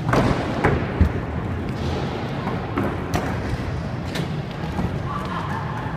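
Skatepark riding: a handful of sharp thuds and clacks from scooter and skateboard wheels and decks hitting the ramps and floor, over the steady din of a large hall.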